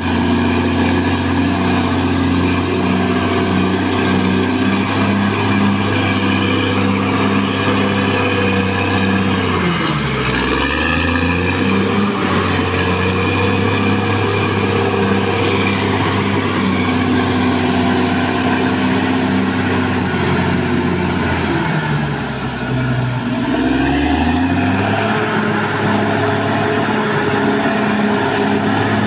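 Caterpillar D6R XL bulldozer's diesel engine running steadily at working revs. Its pitch sags and recovers twice, about ten seconds in and again about twenty-two seconds in.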